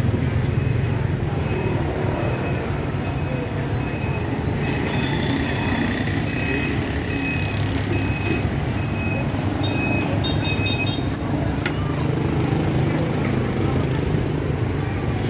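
Busy market street ambience: the steady rumble of passing motor vehicles, with a short electronic beep repeating a little more than once a second for much of the time and a brief burst of rapid higher beeps near the end.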